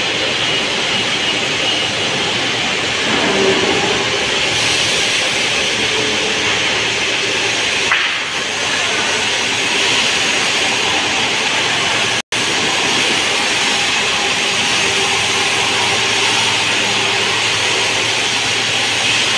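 Steady loud din of sawmill machinery: large band saw headrigs and log-carriage roller conveyors running. The sound drops out for an instant about twelve seconds in.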